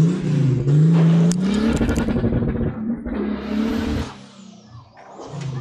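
Nissan Patrol Y60's TB42 inline-six engine revving, its exhaust note rising and falling in pitch as the truck pulls away. The sound drops off sharply about four seconds in as the truck moves off, and the engine note picks up again near the end.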